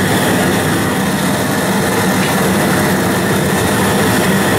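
Outdoor propane cooker burner running at full flame under a large aluminium stock pot of boiling water: a steady, loud rushing noise.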